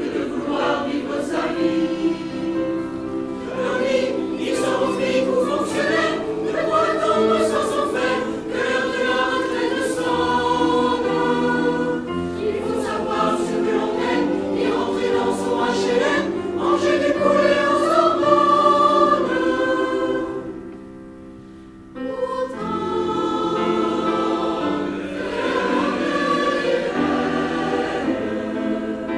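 Mixed choir of men's and women's voices singing a French song together. About two-thirds of the way through the singing drops away for a couple of seconds, then the choir comes back in.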